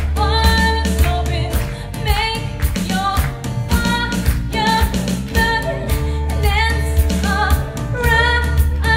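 Woman singing a slow song over a backing track with a steady deep bass and drum beat; partway through she plays a violin line.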